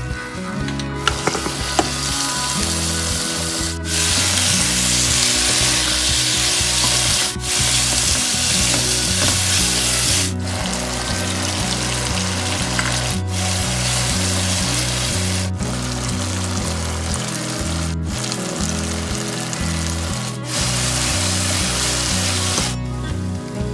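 Beef and sliced onions sizzling in a pan of dark sweet soy-sauce gravy. The frying hiss breaks off abruptly for a moment every few seconds, over quiet background music with low, steady notes.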